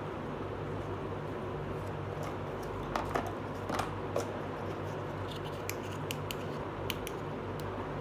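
Small plastic toy pieces being handled and set down, giving a few light clicks about three to four seconds in and a scattered run of sharp plastic ticks in the second half, over a steady low hum.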